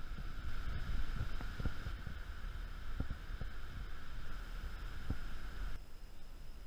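Wind buffeting the microphone: an uneven low rumble that surges in gusts, with a steady hiss over it that cuts off near the end.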